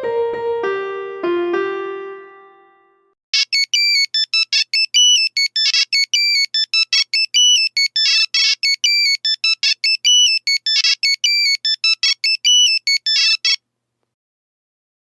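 A descending melody of ringing, piano-like notes fades out. Then a Nokia 3310 monophonic ringtone plays for about ten seconds: a fast melody of short, high, buzzy electronic beeps, one note at a time, stopping abruptly a little over a second before the end.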